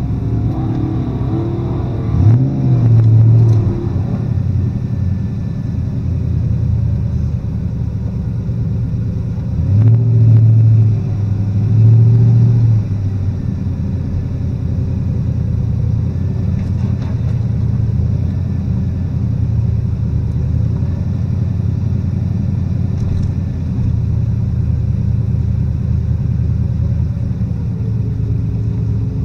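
A 2003 Crown Victoria's 4.6-litre V8 idling with a steady low rumble, heard from inside the cabin. It swells briefly three times: about two seconds in, and twice between about ten and thirteen seconds in.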